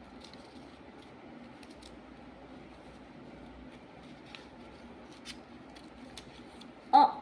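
Quiet room tone with a few faint ticks. Near the end a voice speaks one short word.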